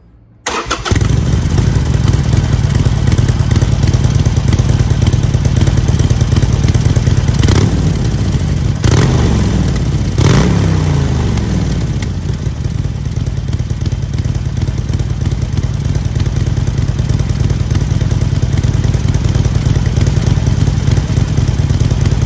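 Harley-Davidson Forty-Eight's 1200 cc air-cooled V-twin idling steadily through its dual exhaust, cutting in abruptly about half a second in. Three quick throttle blips come in the middle, each rising and falling back to idle.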